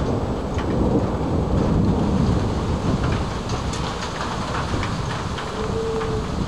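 Thunder rumbling over steady rain, the rumble easing off a little after about three seconds, with scattered raindrop taps.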